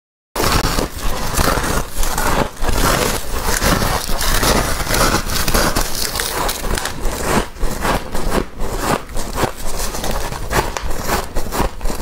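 Someone biting into and chewing a mouthful of snow-like freezer frost close to the microphone: continuous dense, crackling crunches.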